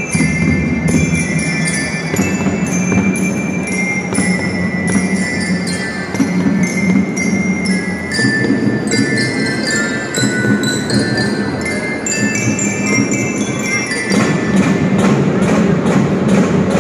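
Marching band playing, with bell-like mallet percussion such as a marching glockenspiel ringing out the melody over drums. It gets louder about two seconds before the end.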